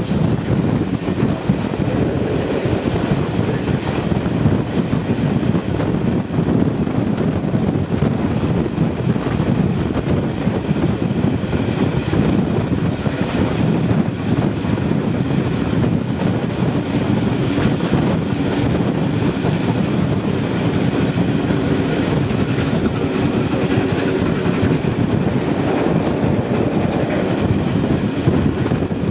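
Train running along the track: a steady rumble of wheels on the rails with a clickety-clack.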